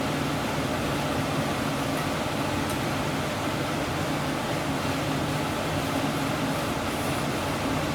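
Steady hum of a running fan: an even, airy rush over a low drone that does not change.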